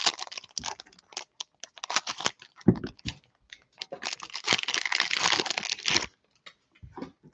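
Cellophane wrapper of a football-card cello pack crinkling and tearing as it is pulled open by hand, with a longer stretch of continuous crinkling about four to six seconds in.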